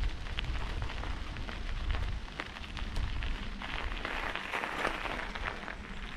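Bicycle tyres rolling over a gravel path, a continuous crackling crunch, with wind rumbling on the action camera's microphone. The rumble eases and the gravel noise grows sharper after about four seconds as the bike slows.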